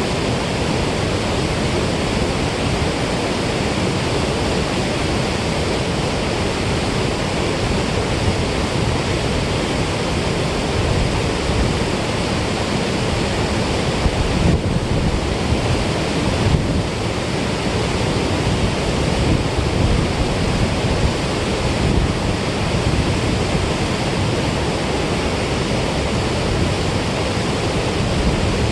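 Steady rush of water released through the dam spillway, an even noise with no break.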